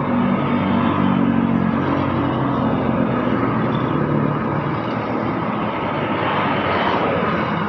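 Commuterline electric train passing close by: a loud, steady running noise with a low hum that fades out after about three seconds.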